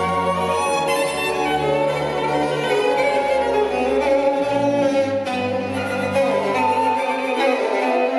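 Recorded string music, a violin line over cello and other low strings playing sustained notes, reproduced by a Focal Sopra N°1 hi-fi loudspeaker with a beryllium tweeter. The low bass notes drop out about seven seconds in.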